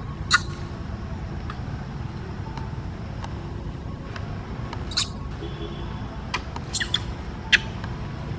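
Steady low outdoor rumble, with a few short sharp clicks: one just after the start and three more in the second half, the loudest a little before the end.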